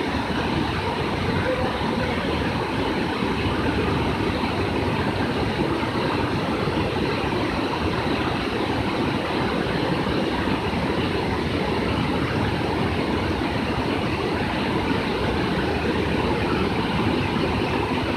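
Water pouring over a river weir, a steady rushing of falling white water that does not change.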